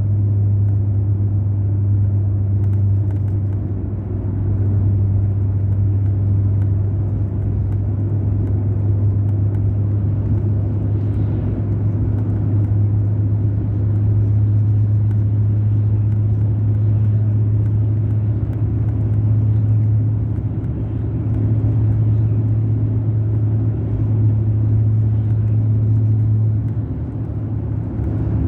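Mercedes-Benz O500 RSD BlueTec5 coach's diesel engine running steadily, a constant low drone that dips slightly in level now and then.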